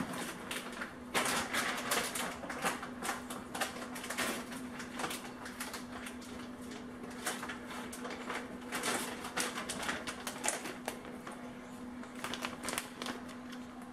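Irregular clicks, taps and rattles of someone rummaging for an ingredient, thinning out toward the end, over a steady low hum.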